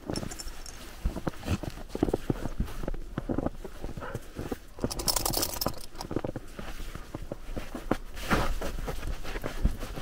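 Footsteps in snow, an uneven run of soft steps, with a short hissing rustle about halfway through and another near the end.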